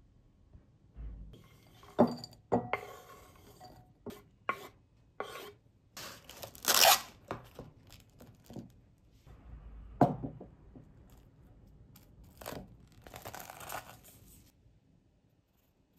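Kitchen handling sounds: a wooden spoon scraping and knocking through minced ginger on a wooden cutting board and into a glass bowl, with plastic cling wrap rustling and tearing. A series of separate scrapes and knocks, a louder ripping stretch about seven seconds in, and a sharp knock about ten seconds in.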